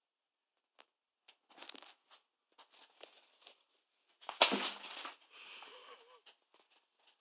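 Scuffling and rustling of two cats playfighting on a fabric couch, with scattered light scratches and taps, then a loud bump and scrape against the phone about four seconds in as one cat lunges into it.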